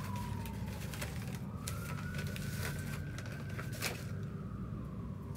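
Distant emergency-vehicle siren wailing, its pitch sliding slowly down and then rising again, over a steady low rumble. Scattered crinkles and clicks of paper wrapping being handled sound close by.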